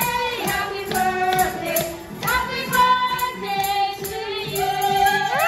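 Upbeat song with singing over a steady beat.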